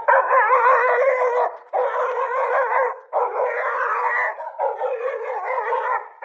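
Dog howling: four long calls, each about a second and a half, wavering in pitch, with short breaks between.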